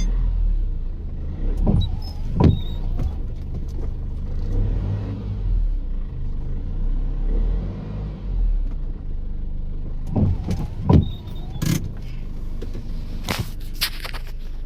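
A car driving with a steady low rumble. About six sharp thumps are spread through it, the loudest about two and a half seconds in and near eleven seconds.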